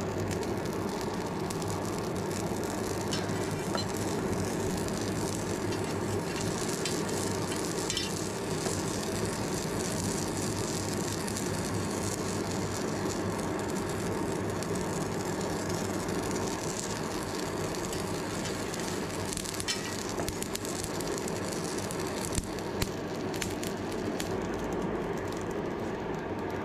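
Charcoal forge fire burning hard under an air blast while a blade heats in it: a steady rush of air with a low hum, the coals crackling and sizzling throughout, and a couple of sharper cracks late on.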